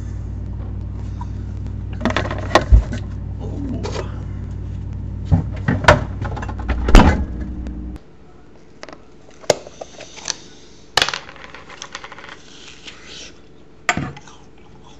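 Refrigerator running with a steady low hum while jars and containers clink and knock on its shelves. About eight seconds in the hum stops, and a metal spoon clinks and scrapes in a plastic applesauce tub.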